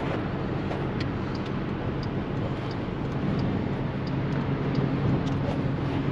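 Steady road and engine noise inside a moving car's cabin at highway speed, with a low engine hum that grows a little stronger about halfway through.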